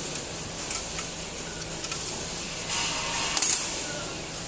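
A steel spanner working the fixing bolts on a tray denester's stainless-steel plate: scattered light metallic clicks and clinks, a short scraping rush of noise just before three seconds in, then a quick cluster of sharp metal clinks, the loudest sounds.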